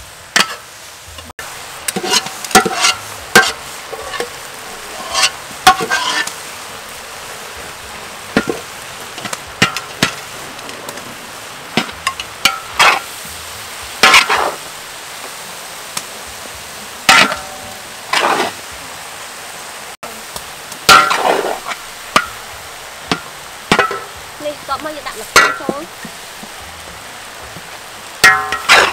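A metal spatula scraping and clanking against a large wok while a big batch of chilies and rice is stirred, with a steady frying sizzle underneath. The scrapes come irregularly, every second or two, some with a short metallic ring.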